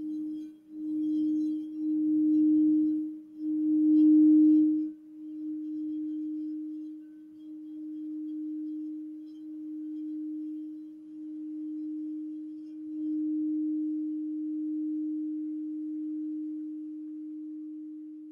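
Crystal Alchemy crystal singing bowl, the Saint Germain Sky Violet Flame bowl, sounding one steady tone as a white wand works its rim. In the first five seconds the tone swells loudly several times with a rough rubbing noise under it, then it rings on with slow, gentle swells.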